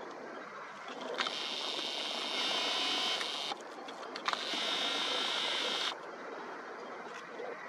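Superzoom camera's lens motor whirring in two bursts of about two seconds each, starting about a second in and again a little before halfway, with small clicks, as the lens zooms and refocuses. Faint outdoor background underneath.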